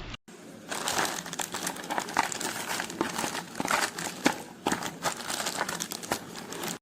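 Plastic packaging crinkling and rustling as it is handled, with an irregular run of sharp crackles.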